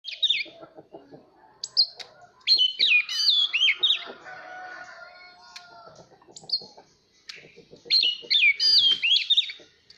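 Oriental magpie-robin singing: two bursts of rapid, sweeping whistled phrases, one about two and a half seconds in and one about eight seconds in, with quieter calls between them.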